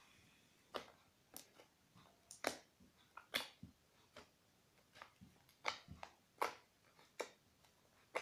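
Fluffy slime made from shaving foam, white glue and borax, kneaded and pulled by hand, giving irregular short squelches and sticky pops about two a second.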